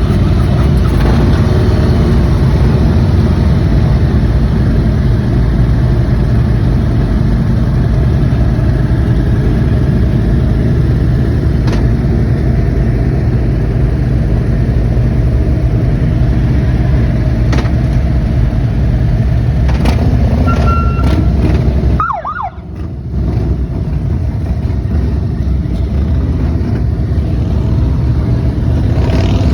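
Several Harley-Davidson police motorcycles' V-twin engines running together in a loud, steady rumble. About three quarters through the sound briefly drops away, and a short falling siren chirp is heard.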